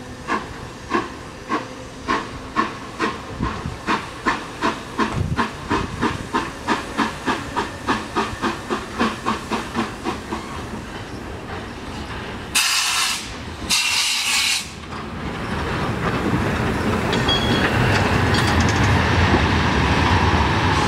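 ČSD class 556.0 2-10-0 steam locomotive working toward the listener. Its exhaust beats come evenly and grow louder, then two loud hissing blasts of steam sound about a second apart. After that comes a steady rumble and clatter of wheels and running gear as the engine passes close by.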